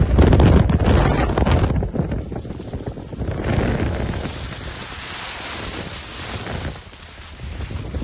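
Wind buffeting the microphone during a fast downhill run, over the hiss and scrape of edges sliding across groomed snow. It is loudest at the start and eases off after about three seconds, dipping lowest near the end.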